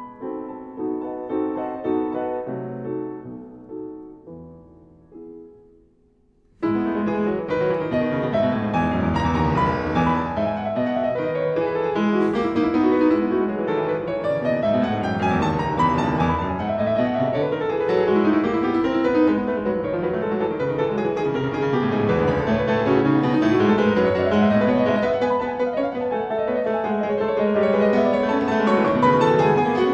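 Background piano music. One passage fades to near silence about five seconds in, and a fuller, flowing piano passage starts abruptly at about six and a half seconds.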